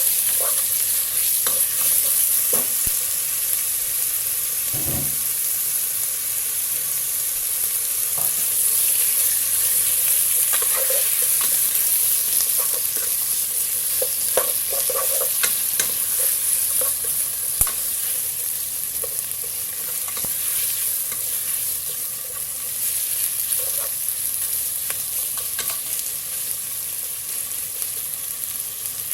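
Sliced chicken frying in hot oil with onion and garlic, a steady sizzle, while it is stirred; the utensil knocks and scrapes against the cooking vessel now and then.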